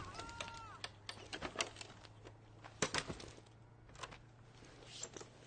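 Irregular sharp clicks and knocks, a dozen or so, with a low steady hum beneath and a brief arching whistle-like tone near the start.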